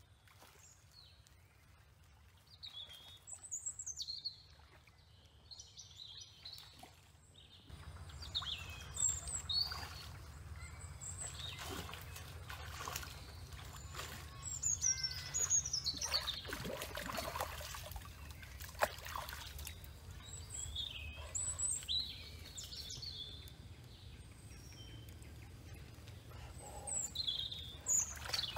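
Wild birds chirping and calling, many short chirps. From about eight seconds in, water splashes and sloshes as someone wades through a shallow pond.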